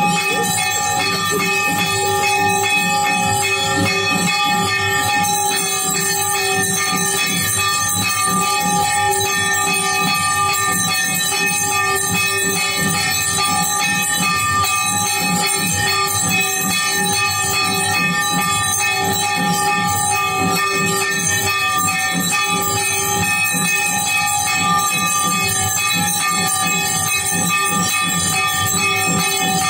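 Temple bells clanging continuously during an aarti, with sustained ringing tones over a fast, even beat underneath; loud and unbroken.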